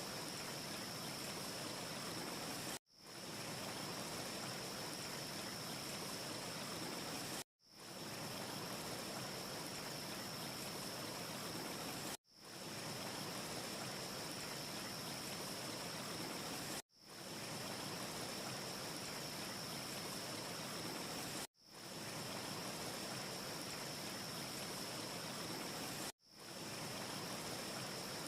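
Steady rushing hiss with a faint, thin high whine and no crackle, cut to silence six times at even spacing of about four and a half seconds, each time fading back up within a second: a short ambience loop restarting.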